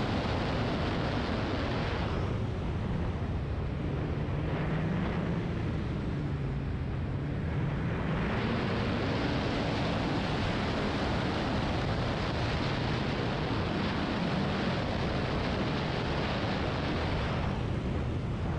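Snowmobile engine and track running along a trail. About two seconds in the engine eases off and drops in pitch, picks up again around eight seconds, and eases off briefly near the end.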